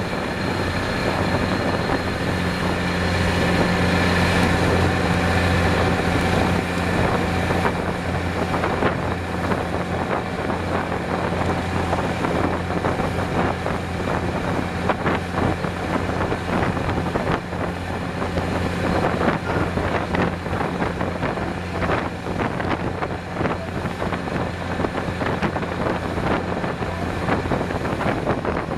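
A Yanmar 52-foot boat under way at speed: its diesel engine running with a steady low drone, under the rush and splash of water spraying along the hull and wind on the microphone.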